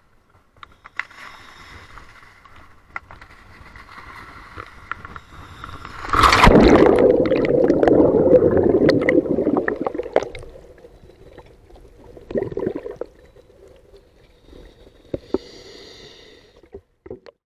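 Water entry with a sudden splash about six seconds in, followed by several seconds of loud rushing, gurgling bubbles underwater that fade out. Quieter bubbling and hissing come near the end.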